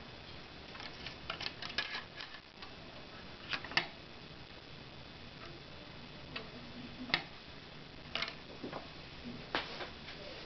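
Scattered light clicks and taps at irregular intervals from fingers handling a thin flexible Rogowski coil and its connector against the wires and components of a circuit board, over a faint steady hiss.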